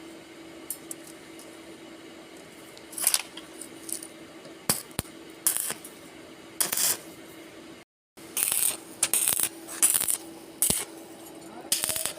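Short, irregular bursts of crackling from stick welding, like tack welds being struck on steel, over a steady hum.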